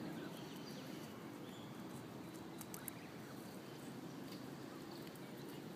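Faint high peeping of Canada goose goslings, a few short chirps scattered through, over a steady low outdoor rumble, with a few light clicks near the middle.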